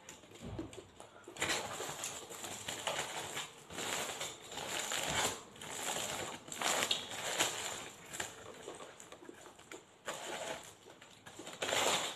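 A person biting into and chewing a shawarma wrap close to the microphone: uneven, noisy mouth and chewing sounds coming every second or so, with no voice.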